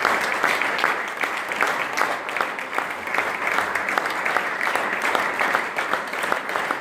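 Audience applauding steadily: many hands clapping at once, a dense patter that neither builds nor fades.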